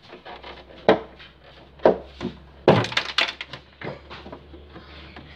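Hard plastic knocks and clicks from a TV's moulded plastic subwoofer enclosure being handled at its mounting clips: single knocks about one, two and four seconds in, with a quick run of rattling clicks around three seconds, over a faint steady low hum.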